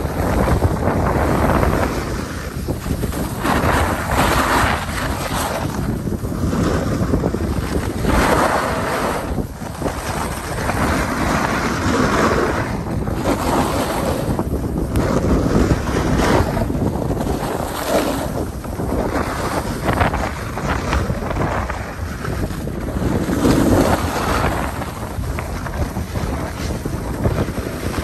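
Wind buffeting the microphone of a camera moving down a ski run. It makes a loud, uneven rushing that swells and eases every few seconds, mixed with the hiss of sliding over snow.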